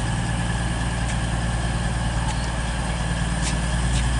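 Class 222 Meridian diesel multiple unit running slowly into the station. Its underfloor diesel engines give a steady low drone that grows a little louder as it nears, with a few light clicks over it.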